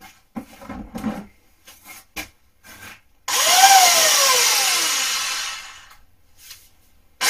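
Old VEB Geringswalde corded electric drill test-run, its first start showing the decades-old drill still works. After a few knocks of handling, it is switched on about three seconds in: the motor whine rises briefly, then falls steadily as the drill winds down over a couple of seconds after the trigger is let go. It starts again right at the end.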